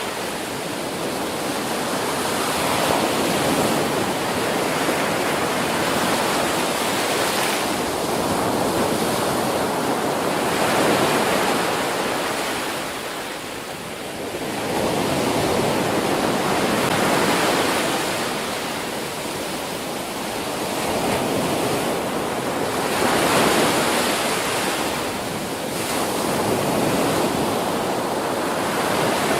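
Ocean waves breaking on a beach: a steady rush of surf that swells and eases in slow surges every few seconds.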